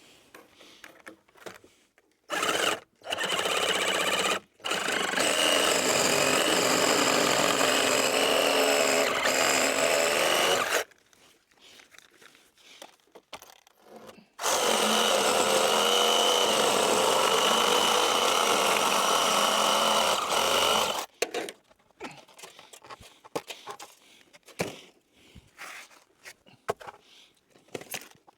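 Power saw cutting through wooden roof framing in several runs: a short burst, then two long steady cuts of about six seconds each, each starting and stopping abruptly, with small knocks and handling noises between them.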